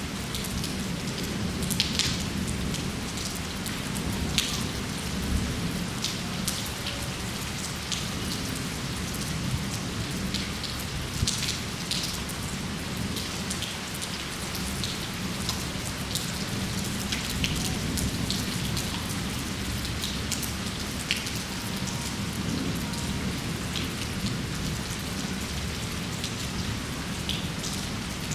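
Steady rain, with many individual drops ticking sharply on a nearby surface over a constant low wash.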